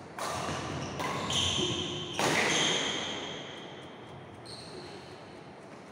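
Badminton rally: three sharp racket hits on the shuttlecock about a second apart, each echoing in a large hall, with shoes squeaking on the wooden court after the second hit; then the rally ends and the hall goes quiet.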